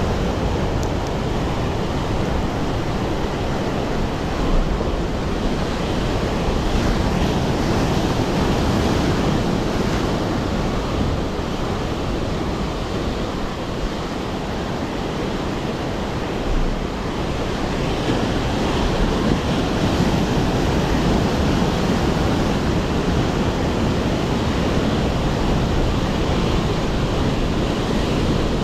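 Ocean surf washing steadily onto a beach, with wind on the microphone.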